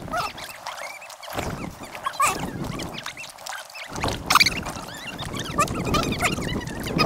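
Kayak-trip audio sped up about fourfold: quick, sharp splashes and water noise, with many short high chirps running through it.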